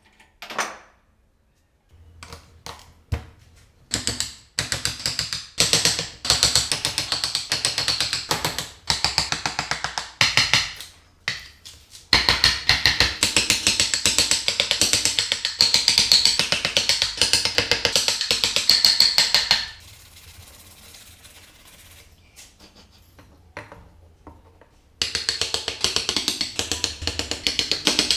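Hand chisel and gouge carving into a small block of wood, in long runs of quick sharp ticks and scrapes as chips are cut. A quieter stretch comes after about twenty seconds, then another run of cutting near the end.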